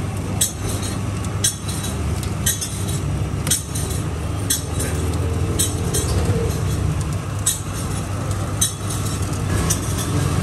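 Sugarcane juice roller press running with a steady low hum as a cane stalk is fed through and crushed, with a sharp metallic clink about once a second.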